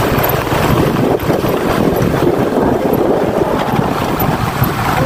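A vehicle engine running steadily, with wind noise on the microphone.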